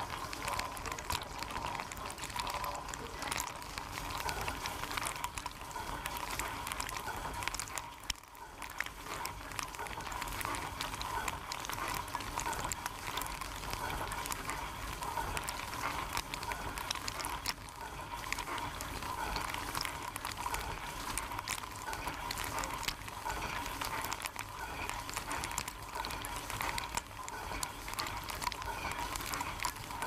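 Water jets spraying and pattering on the camera from inside a running dishwasher during the wash, with a steady whine under the splashing. The spray briefly drops off about eight seconds in.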